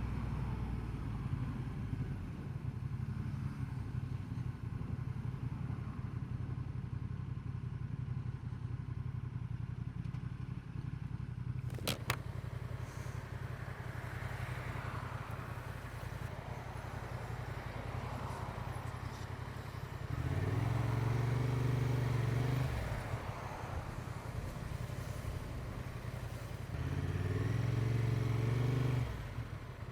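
Honda XL750 Transalp's 755 cc parallel-twin engine running while riding, a steady low hum that grows louder twice, about twenty seconds in and again near the end, as the bike pulls harder. A single sharp click about twelve seconds in.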